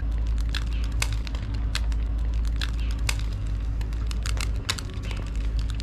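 A large pile of burning safety matches crackling, with irregular sharp pops and snaps over a steady low rumble.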